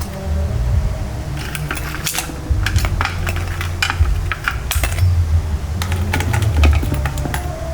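Metal utensils and dishes clinking and clattering in irregular short knocks, over a low steady rumble.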